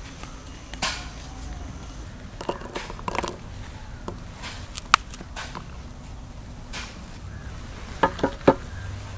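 Irregular knocks, taps and clicks of hands-on food-preparation work, with a sharp click about five seconds in and three quick knocks near the end.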